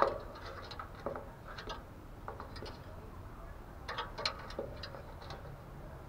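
Spotted dove pecking in its wire cage: a sharp tap right at the start, then scattered light ticks and taps, a cluster of them about four seconds in.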